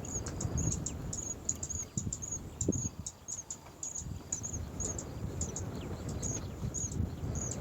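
Cricket chirping in a steady series of short, high chirps, about three a second, over low rumbling and a few soft knocks.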